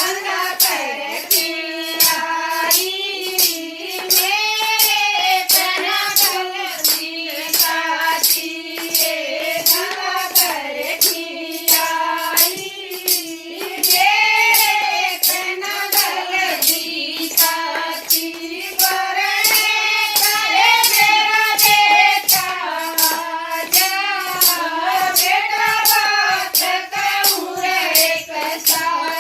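A Haryanvi bhajan sung by a single melodic voice line over a steady percussion beat of jingling strikes, about two a second.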